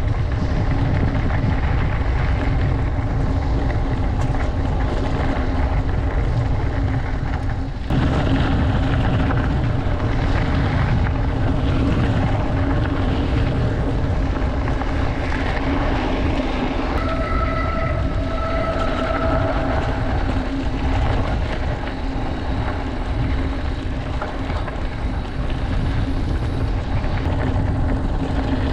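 Wind buffeting a GoPro Hero 9 Black's microphone and mountain bike tyres rolling over a dirt fire road, a loud, steady rumble with a low hum. A brief high whine comes in about two-thirds of the way through and lasts a couple of seconds.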